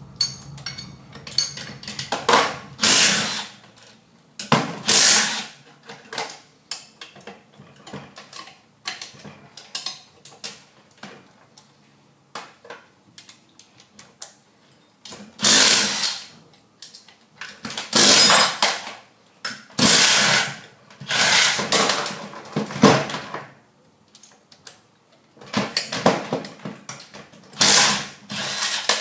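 Milwaukee M12 Fuel 3/8-inch cordless impact wrench hammering bolts loose on a lever hoist, in about nine short bursts of under a second each, with clicks and clinks of hand spanners and steel parts in between.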